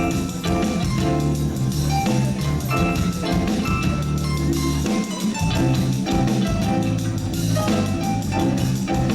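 Live reggae band playing an instrumental passage without vocals: a heavy bass line under drum kit and percussion hits, with sustained keyboard or guitar chords.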